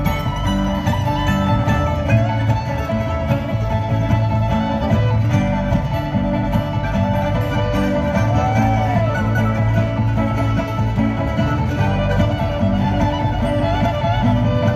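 Live bluegrass band playing an instrumental passage: bowed fiddle over banjo, mandolin and upright bass.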